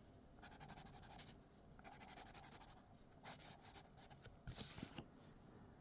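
Faint scratching of a colouring tool rubbed across paper, in several spells of about a second each; the last, near the end, is the loudest.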